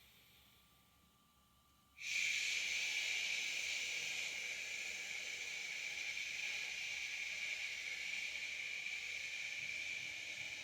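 A person breathing out a long, steady hissing 'shhh' healing sound. It starts suddenly about two seconds in and holds evenly, fading slightly near the end.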